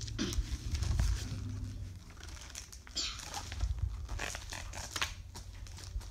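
Paper pages of a picture book being handled: scattered rustles and soft clicks, with low bumps underneath.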